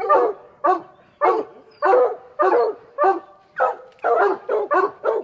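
Several hunting hounds barking up a tree in quick, repeated barks, about two a second. It is the treeing bark that tells the hunters the mountain lion is treed.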